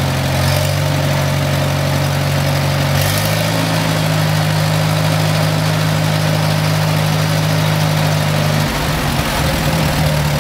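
Farmall Super M tractor's four-cylinder engine running steadily; its pitch steps up about three seconds in and turns unsteady near the end.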